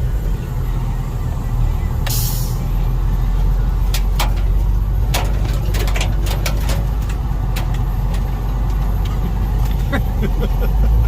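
Jeep Cherokee driving off-road: a steady low engine and drivetrain rumble, with sharp knocks and clatters from the bumps, a cluster of them in the middle, and a short hiss about two seconds in.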